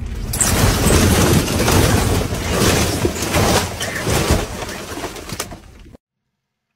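Dozens of full plastic and foam drink cups toppling and crashing down in the back of a vehicle, a long dense clatter with splashing spills starting about half a second in and dying away. The sound cuts off abruptly near the end.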